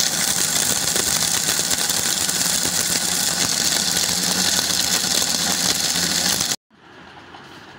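Electric mixer grinder running, its blades whirring through roasted whole spices to grind them to powder. The steady loud noise cuts off suddenly about six and a half seconds in, leaving a fainter steady hum.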